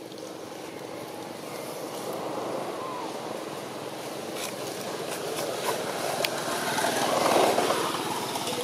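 A motor vehicle passing by, its engine and road noise swelling to a peak about seven seconds in and then fading, with a few faint clicks.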